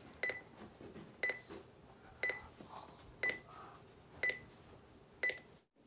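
Digital alarm clock's buzzer alarm beeping: a short, high electronic beep once a second, six times.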